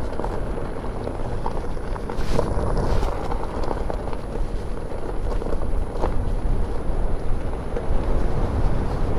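Wind buffeting the microphone while a Leaperkim Lynx electric unicycle rolls along a gravel road, its tyre crunching over loose stones with scattered small ticks.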